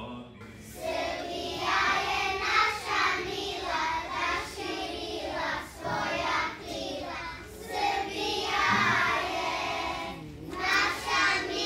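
A group of young children singing together in chorus, in phrases with short breaks between them.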